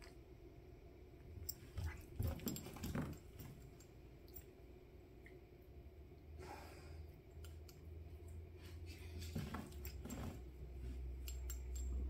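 Faint scuffling and small clicks of a kitten playing at a lying dog's head, in two short flurries, about two seconds in and about ten seconds in. A low hum builds near the end.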